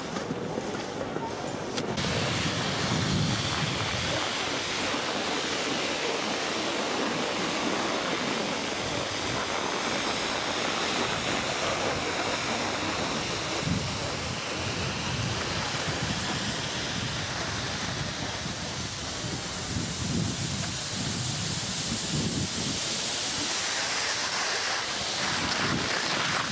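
Wind buffeting the microphone and snow hissing under a snowboard and skis sliding down a groomed piste, a steady rushing noise with irregular low rumbles that sets in about two seconds in.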